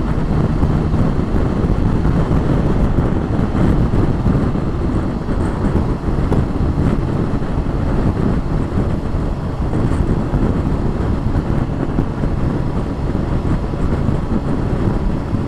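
Motorcycle riding at speed: steady wind rushing over the microphone mixed with engine and road noise, with no break or change.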